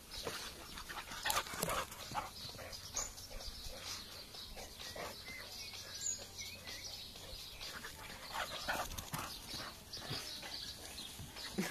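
Faint sounds of a boxer dog dashing around a lawn: scattered brief noises, with no loud or steady sound.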